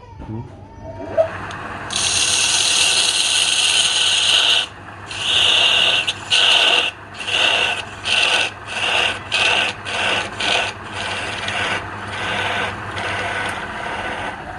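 Abrasive rubbing against wood: one long continuous stroke, then about ten short strokes in quick succession. A low steady motor hum runs underneath and stops shortly before the end.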